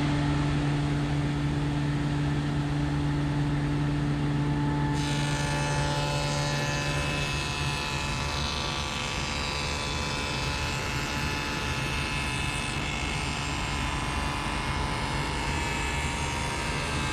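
Table saw with a dado stack running with a steady hum. About five seconds in, the stack starts cutting a 15/32-inch dado into a birch plywood panel, a dense cutting noise that lasts until near the end, when the steady hum of the freely spinning blade returns.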